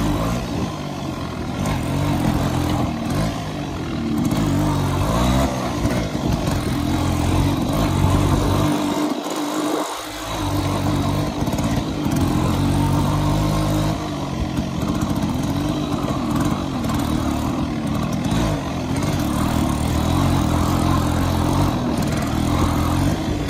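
Yamaha RX100's two-stroke single-cylinder engine being ridden, its note rising and falling with the throttle and gears. The engine sound drops away briefly about nine seconds in, then picks up again.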